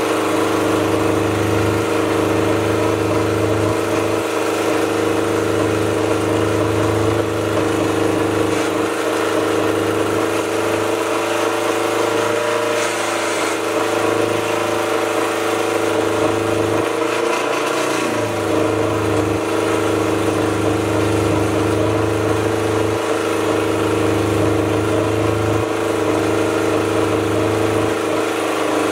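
Racing speedboat Predator's engine running at a steady speed, its note wavering briefly a little past halfway.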